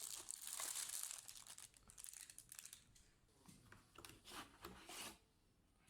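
Laptop packaging crinkling and rustling as it is handled and unwrapped: a dense stretch in the first second or two, then short separate bursts, stopping about five seconds in.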